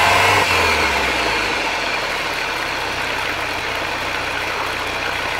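MerCruiser sterndrive boat engine running in forward gear on a post-repair test run. It is revved up in the first second or so, then settles back to a steady idle, with water from the drive splashing on the pavement.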